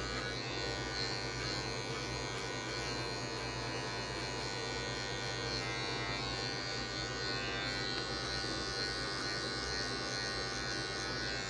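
Electric hair clipper with a no. 1 guard comb and its blade lever set open, buzzing steadily as it is worked in and out through short hair.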